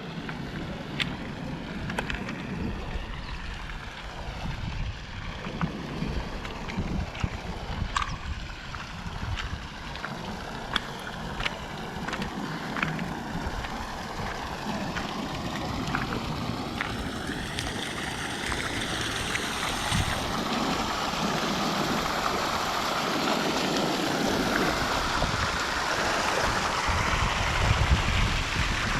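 Running water, a rushing hiss that swells over the second half. Scattered sharp clicks and knocks come through in the first half, with a low rumble of wind on the microphone.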